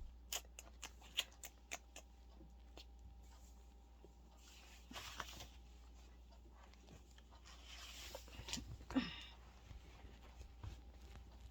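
Faint scattered clicks and rustles of gift wrapping and packaging being handled, with a brief soft rustle about five seconds in and another around eight to nine seconds.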